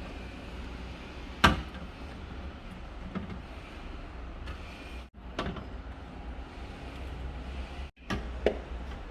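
Steady low hum with one sharp click or knock about a second and a half in and a few lighter clicks near the end; the sound drops out briefly twice.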